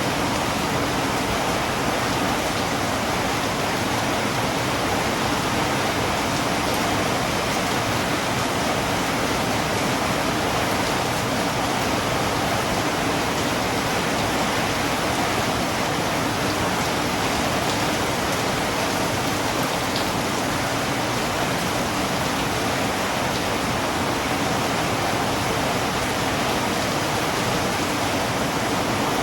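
Steady rain, a dense and constant hiss with no change in level.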